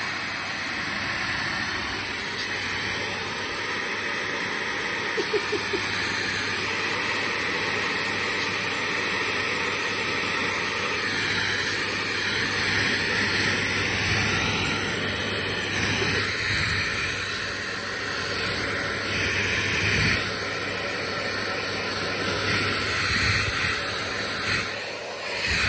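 Handheld hair dryer running steadily: a continuous rush of blown air over a low motor hum, its level wavering a little.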